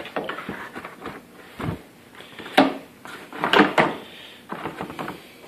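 Handling noise from a quadcopter's packing box and its parts: irregular knocks, scrapes and rustles, with a sharp knock about two and a half seconds in and a cluster of louder knocks a second later.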